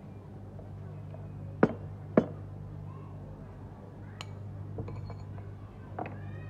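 Two sharp metallic clinks about half a second apart, then a few lighter taps, from a goldsmith's steel tools striking metal on the bench, over a steady low hum.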